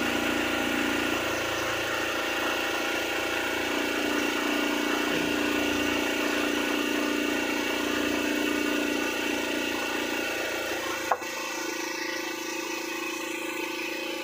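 A small engine running steadily, a constant hum with several held tones. A single knock about eleven seconds in, after which the low rumble drops away.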